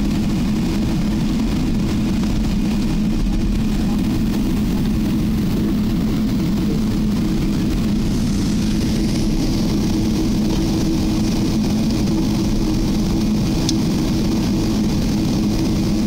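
Cabin noise of an Emirates Airbus A380 taxiing after landing: a steady low engine and air-system hum with a constant rushing haze. A higher hiss comes in about halfway, and there is a single short click near the end.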